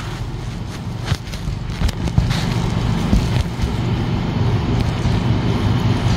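Wood fire in a fire pit crackling, with scattered sharp pops over a steady low rumble.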